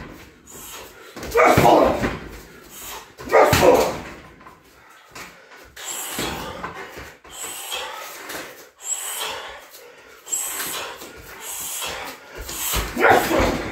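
Kicks landing on a heavy punching bag: two loud hits about two seconds apart early on and another near the end, each with a short vocal burst, and softer hits and noises in between.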